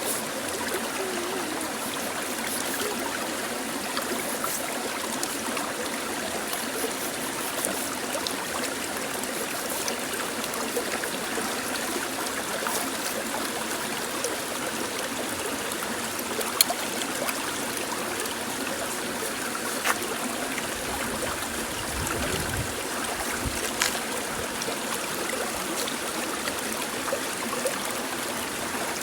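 Steady running water with a few sharp clicks over it, and a brief low rumble a little past the middle.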